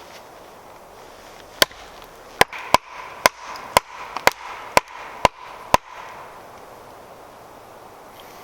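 Firewood being split by hand: about ten sharp chopping strikes into a log in quick succession, roughly two a second, starting a second and a half in and stopping a little past the middle.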